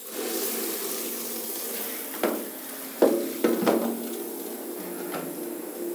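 Water running from a hand-held shower head into a shower tray, a steady splashing hiss, with a few sharp knocks about halfway through as the metal shower head is handled and laid in the tray.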